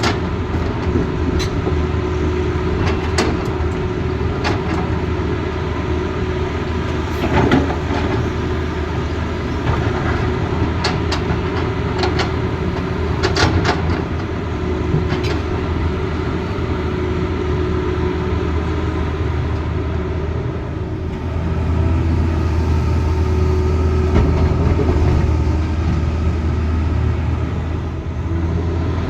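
Tata Hitachi Zaxis excavator's diesel engine running steadily under load, with scattered sharp clanks and knocks in the first half and a louder stretch near the end as the engine works harder.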